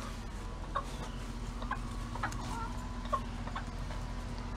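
Chickens clucking softly: a handful of short, scattered calls over a faint steady hum.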